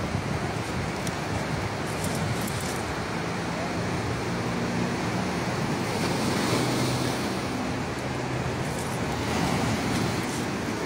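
Ocean surf breaking and washing over a pebble beach: a steady rush of noise that swells about six seconds in and again near the end.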